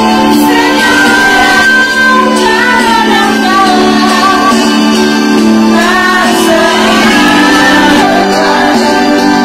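A woman singing a melody through a microphone, accompanied by sustained keyboard chords.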